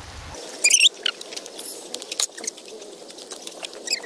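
Chicken and sausages sizzling on a charcoal grill, with fat crackling on the hot coals in many small pops. High, squeaky chirps break in loudly just under a second in and again near the end.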